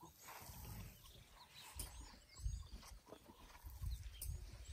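African elephants moving right beside the vehicle: a few soft, low thuds and rumbles, quiet overall.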